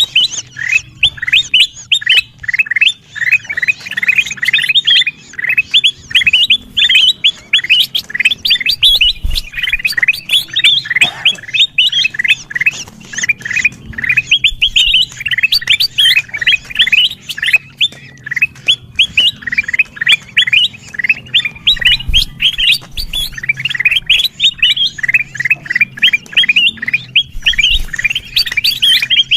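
Kutilang emas bulbuls calling noisily: a dense, unbroken stream of short, quick chirps, several a second, recorded as a bird lure sound.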